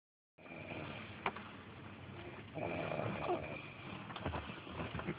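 A sleeper snoring, with one longer, louder snore about two and a half seconds in. There is a sharp click about a second in.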